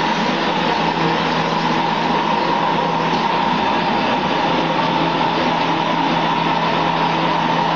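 Mortar spraying machine and its air compressor running steadily: a constant mechanical drone with a steady high whine.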